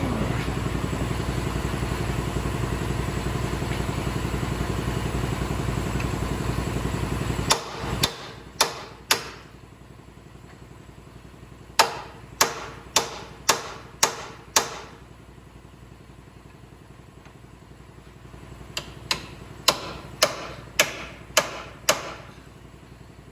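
Welding arc buzzing and crackling steadily on the steel frame for about seven seconds, then cutting off. A hammer then strikes the metal in three runs of about four to six sharp, ringing blows, roughly two a second.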